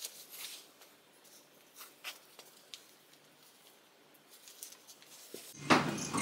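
Faint rustling and small clicks of sneakers and shoelaces being handled as shoes are put on and laced. Near the end, a louder low hum with a few knocks takes over.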